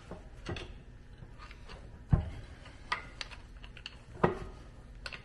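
Pry bar working on a stuck part of a Minneapolis Moline G1355 tractor's transmission: scattered metal knocks and scrapes, the two loudest clunks about two seconds in and a little after four seconds, as the piece refuses to move.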